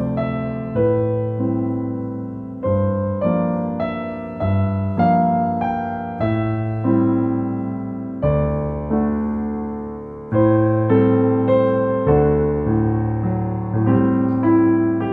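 Solo piano playing a slow, gentle piece: single notes and chords struck about once or twice a second, each one ringing and fading before the next.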